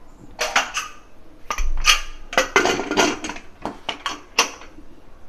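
Aluminium pressure cooker lid being put on and closed, with the whistle weight set on top: a run of metal clanks and clicks.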